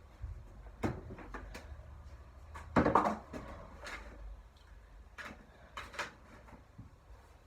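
Plastic clicks and knocks from handling a mini washing machine and its parts, with a louder clatter about three seconds in.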